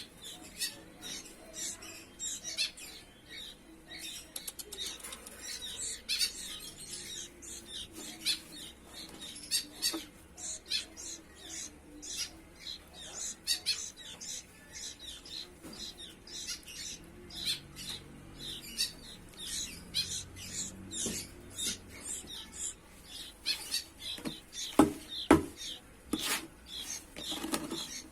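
Young sooty-headed bulbul chicks chirping over and over, short high calls several a second, with a few louder knocks near the end.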